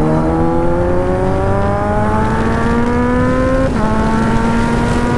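Kawasaki Z900's inline-four with an SC-Project aftermarket exhaust, accelerating hard with the engine note climbing steadily. About three and a half seconds in, a quick clutchless quickshifter upshift drops the pitch at once, and it climbs again.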